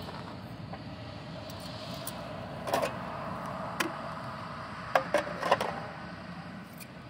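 Heavy logging equipment running steadily in the distance, with a few sharp clicks and knocks of tools being handled, in a cluster about five seconds in.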